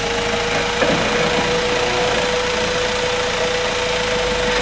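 Nissan Patrol Y61 4x4 engine running at low revs while the truck crawls slowly over rocks, with a steady whine over the engine noise.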